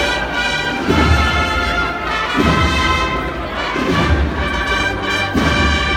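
Brass band playing a processional march, with sustained brass chords over a bass drum beat about every one and a half seconds.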